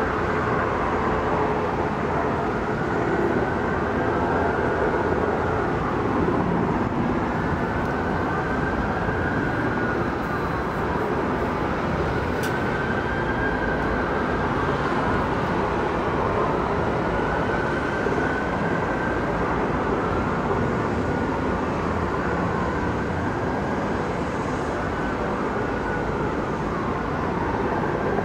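Steady helicopter rotor and turbine noise: a white-topped green military helicopter hovers in low and sets down, while other parked aircraft keep running.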